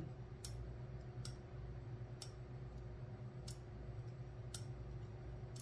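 Small, sharp clicks of lock pins being handled with tweezers on a pinning tray while a disassembled lock's pin stacks are sorted, about one click a second, over a faint steady hum.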